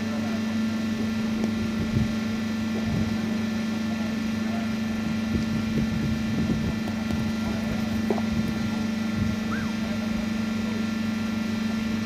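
Steady mechanical hum with a strong low tone and several fixed higher tones, over faint voices. One brief knock about eight seconds in.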